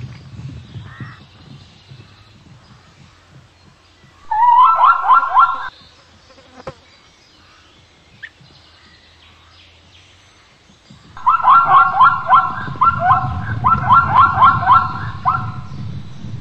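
Plains zebra barking: a quick run of high, yelping calls about four seconds in, then a longer series of the same calls from about eleven seconds, over a low rumble.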